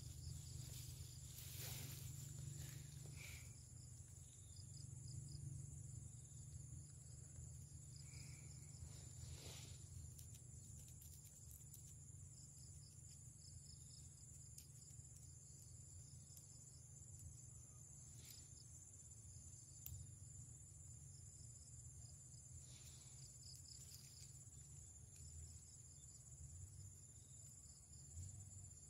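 Faint insect chorus, likely crickets: a steady high-pitched trill with rows of quick repeated chirps, over a low steady rumble. A few brief faint clicks come through now and then.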